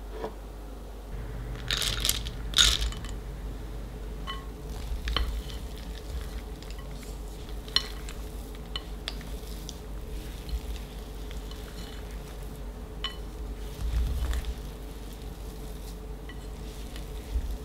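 Chocolate chips tipped from a small glass bowl into a glass mixing bowl, a short clattering rattle about two seconds in, then a silicone spatula folding them into cookie dough, with light clicks and scrapes against the glass.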